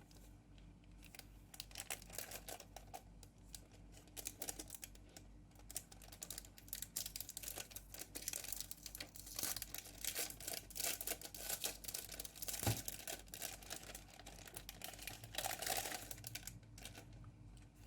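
Plastic wrapping crinkling and rustling as it is pulled off a keyboard, with scattered small clicks and one sharp knock about two-thirds of the way through.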